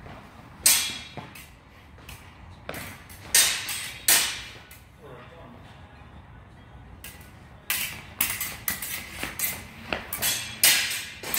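Steel swords clashing during sparring. There are a few single sharp blade strikes, then a quick flurry of clashes near the end.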